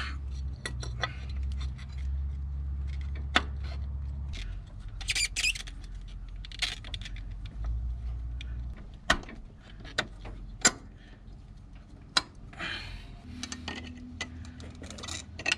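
Metal tools and parts clinking and clicking while a visco fan clutch is fitted to the engine, a handful of sharp clicks spread out with short scraping sounds, over a low hum.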